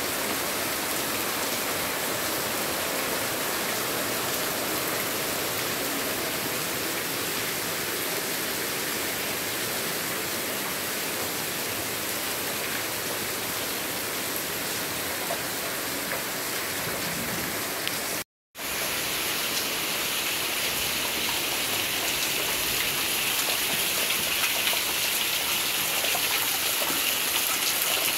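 Heavy rain falling steadily at night, with rainwater pouring off the roof edge in streams, an even rushing hiss. The sound cuts out for a split second about two-thirds of the way through and comes back a little louder.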